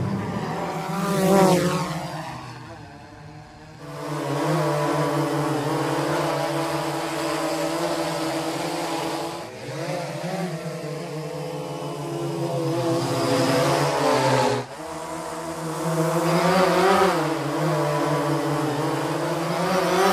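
Quadcopter drone's propellers buzzing with a steady motor whine whose pitch wavers up and down. It fades a couple of seconds in and comes back strongly about four seconds in.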